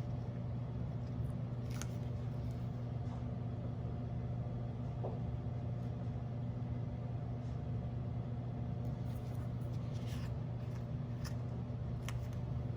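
A steady low hum under faint room noise, with a few soft taps and rustles of stickers and paper being handled, about two seconds in and again near the end.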